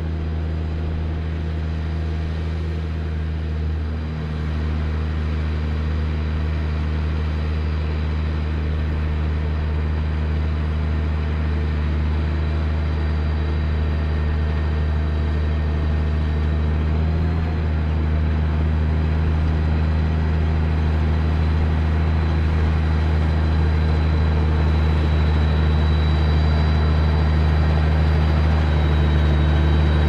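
Fendt 820 Vario tractor's diesel engine running steadily under load while it pulls a Ropa Keiler II L potato harvester, with a faint high whine over the engine. The whole sound grows gradually louder as the rig nears.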